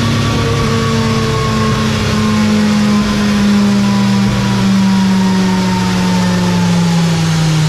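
2022 Suzuki Hayabusa's 1340 cc inline-four, fitted with a small aftermarket exhaust, running loud on a dyno, its pitch falling slowly and steadily as it winds down.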